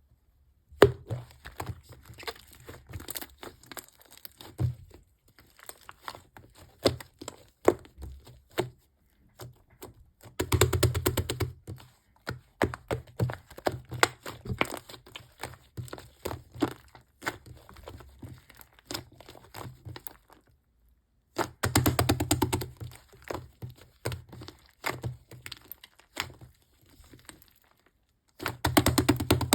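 Slime being mixed and kneaded by hand: irregular sticky clicks and crackling pops, with three denser spells of squishing, about ten seconds in, about twenty-two seconds in, and near the end.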